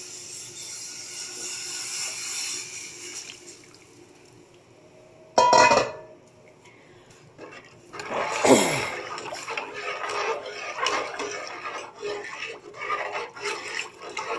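Tomato puree poured into a hot metal pot of browned flour, hissing and fading away over the first four seconds. A sudden loud clatter comes about five and a half seconds in, and from about eight seconds a utensil scrapes and clinks against the metal pot as the thick soup is stirred.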